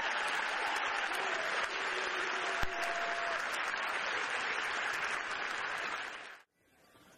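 Audience applauding at the end of an orchestral piece, a dense steady clapping that cuts off abruptly near the end.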